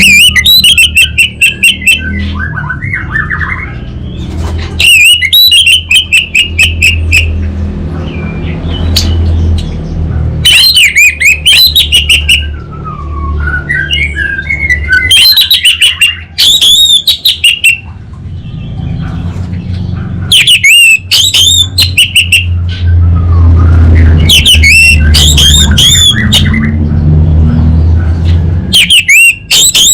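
Orange-headed thrush singing. Loud, very fast stuttering phrases, the crackling 'kabel konslet' (short-circuit) type, come about every four to five seconds, with softer varied warbling between them.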